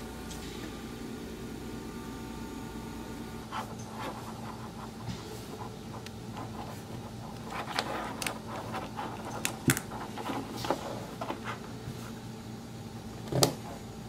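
Light clicks and taps of hands working a nylon strap and a metal bolt against a wooden shelf, with one sharper knock near the end, over a steady low hum.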